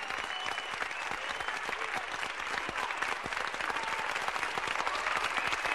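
Live concert audience applauding, with a few whistles over the clapping.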